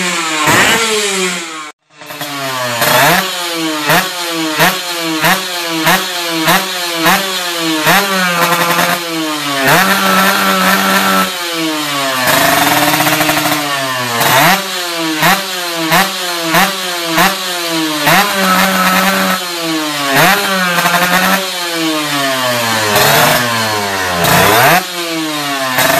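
Kawasaki Ninja 150 R's two-stroke single revved through a stainless KDX racing exhaust in rapid throttle blips, about one and a half a second, each rev rising and falling, with a few longer held revs between runs. The first two seconds are another two-stroke motorcycle revving, cut off abruptly.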